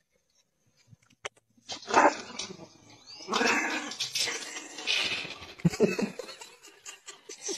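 Small dog barking repeatedly in a run of loud, irregular barks that starts about two seconds in.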